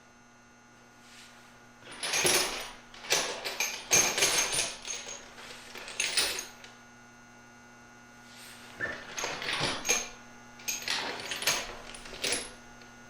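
Metal hand tools and sockets clinking and clattering while being rummaged through for the right size. The sharp clicks come in two busy stretches with a quiet pause between them, over a faint steady hum.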